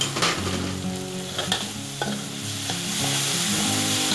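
Chicken with garlic and chili sizzling in oil in a metal wok while a metal spatula stirs and scrapes it, clicking against the pan a few times. The sizzle grows louder about three seconds in.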